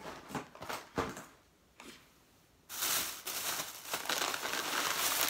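A few light knocks as cardboard snack boxes are moved, then, about halfway through, loud continuous crinkling of plastic packaging being handled.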